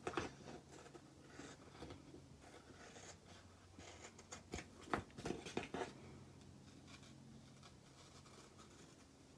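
Scissors trimming paper around an envelope: faint, scattered snips and paper rustles, densest about four to six seconds in.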